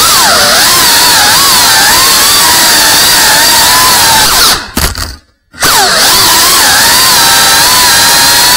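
Tiny whoop FPV drone's small motors whining, the pitch wavering up and down with the throttle. About four and a half seconds in the whine drops away to almost nothing for about a second as the throttle is cut, then comes straight back.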